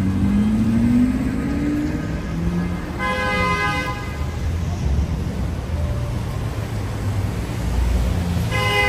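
A vehicle horn honks twice: a blast about a second long about three seconds in, and another starting near the end, over the low rumble of street traffic.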